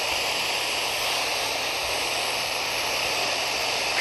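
Steady radio static hiss from a weather radio receiver, with no voice on the broadcast.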